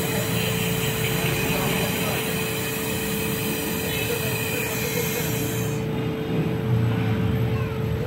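Gas brazing torch flame hissing steadily as it heats the pinched-off copper charging pipe of a refrigerator compressor with a filler rod, shutting off about six seconds in. A steady low hum runs underneath.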